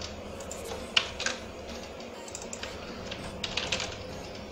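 Computer keyboard typing: keys clicking in short, irregular runs, with the loudest clicks about a second in and a quick run near the end.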